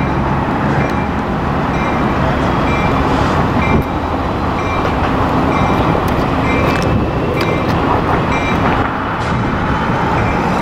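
Diesel passenger locomotive rumbling as it approaches slowly at low power, its bell ringing in an even beat of a little more than one strike a second. A couple of sharp metallic clicks come about two-thirds of the way through.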